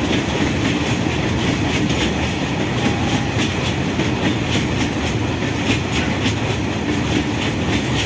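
Freight train of open-top wagons rolling over a railway bridge: a steady rumble of steel wheels on rail, with clickety-clack as the wheels cross rail joints.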